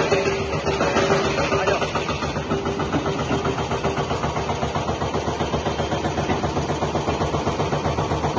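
Tata Hitachi EX200 Super tracked excavator's diesel engine running while the operator works the boom and bucket, with a fast, even throb. A steady high tone sounds over it for the first three seconds or so.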